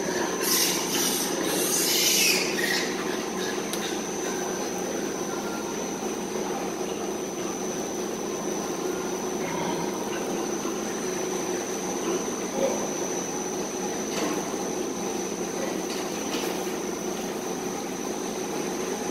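Steady mechanical hum with a constant high whine in a pig farrowing barn, and a brief hissing rush about a second in.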